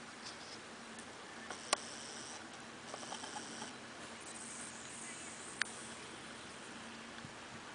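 Cardigan Welsh Corgi puppy sniffing and nosing through dry grass and twig litter, faint, with two sharp clicks, one near two seconds in and one near six seconds.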